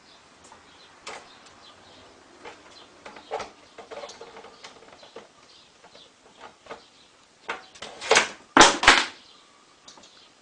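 Scattered light clicks, taps and knocks of a squirrel moving about a kitchen counter around a plastic food container and its lid, with a few louder knocks about eight to nine seconds in.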